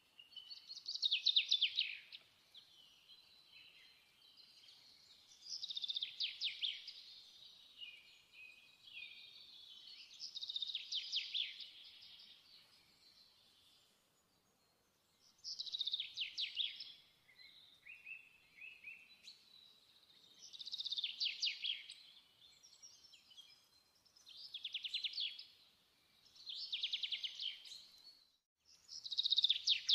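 A songbird singing: short, rapid trilled phrases, repeated one every few seconds.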